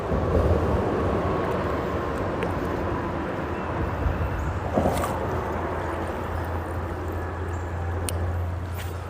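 Steady low rumble of freeway traffic on the bridge overhead, mixed with the rush of flowing creek water, with a swell as a vehicle passes about five seconds in.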